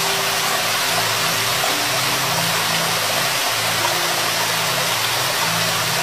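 Steady rushing of a waterfall, an even hiss of falling water. Underneath it, low held music tones change pitch every few seconds.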